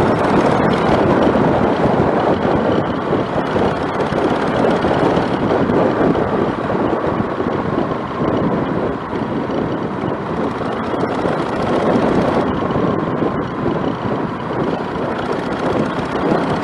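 Rushing wind over the microphone of a moving motorcycle, a steady roar with the engine running evenly underneath.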